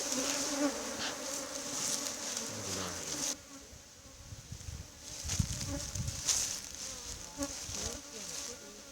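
Honeybees buzzing around an opened hive, with individual bees passing close and their pitch bending up and down. There is some low rumbling around the middle.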